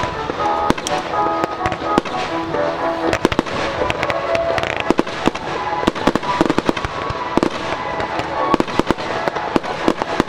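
Fireworks bursting and crackling in rapid, irregular succession, with music playing underneath.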